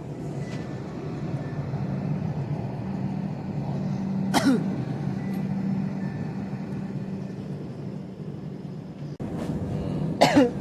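Steady low hum of a train, with a short sharp sound falling in pitch about four seconds in and a few short pitched calls near the end.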